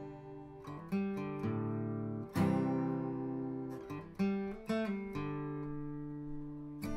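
Acoustic guitar music: plucked and strummed chords, each starting sharply and ringing out as it fades.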